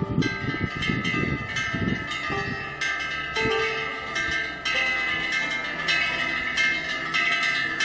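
Korean temple wind bells (pungyeong) hanging from the eaves, struck over and over by their clappers in the wind, with the ringing tones overlapping. Gusts of wind rumble on the microphone in the first couple of seconds.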